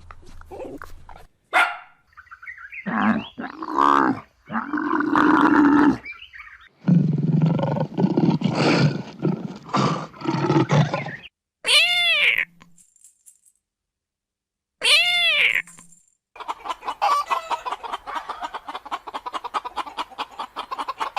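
A string of different animal calls, one after another with short gaps between them. It ends in a fast, even run of clicks.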